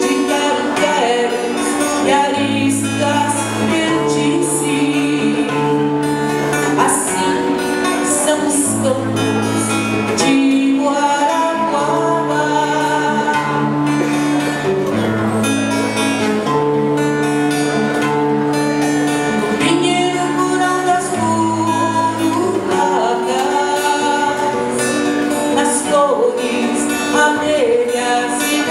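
A woman singing to her own acoustic guitar, amplified through the stage sound system. The guitar keeps up a steady pattern of held bass notes under her voice.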